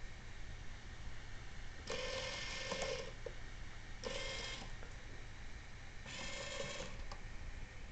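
Small electric drive motor of a model paddle steamer whirring in three short spurts about two seconds apart, running the sprockets and steel roller chain to the paddle-wheel axle.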